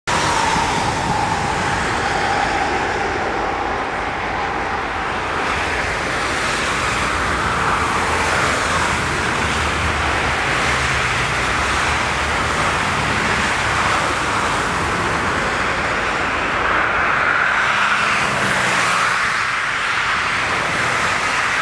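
Boeing 777-300 twin-engine jet airliner approaching and landing: a steady jet roar, with a faint whine falling slightly in pitch near the start.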